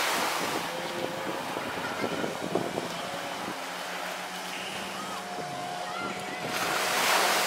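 Motorboat engine running steadily while towing a banana boat, over the wash of waves, with a louder rushing swell about a second before the end. Faint voices come in near the end.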